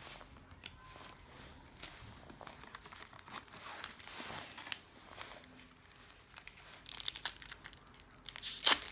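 Foil trading-card pack wrapper crinkling and being torn open, with scattered rustles that grow louder near the end.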